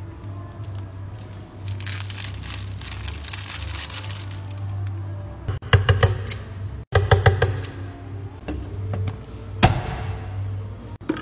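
Ice and ice cream scooped into a plastic blender jar: a rattling hiss, then clusters of sharp knocks as the scoop hits the jar around the middle, and one louder knock near the end.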